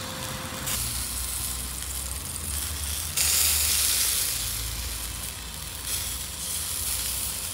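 Nutria meat sizzling as it roasts on a rotisserie spit, its fat and juices hissing. The sizzle turns louder about three seconds in, then eases.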